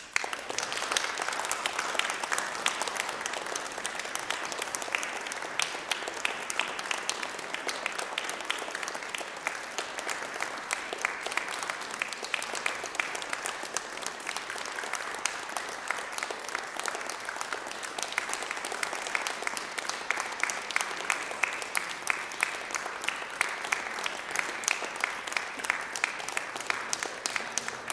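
Audience applause, breaking out suddenly and going on steadily as dense clapping.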